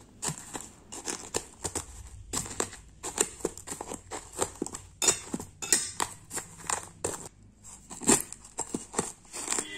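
A pestle crushing a dry, crunchy namkeen mix of sev, peanuts and puffed rice in a steel bowl: irregular crunching and cracking, several strokes a second, with the pestle knocking against the steel.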